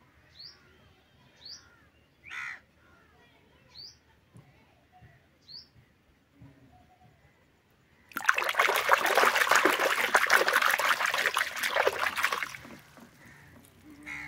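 Short rising bird chirps, repeated every second or so, then about eight seconds in a loud burst of water splashing and sloshing for about four seconds as a hand swishes a plastic toy animal through muddy water in a plastic basin.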